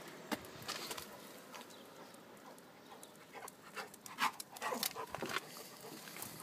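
A yellow Labrador retriever panting in short, irregular breaths, loudest about four to five seconds in.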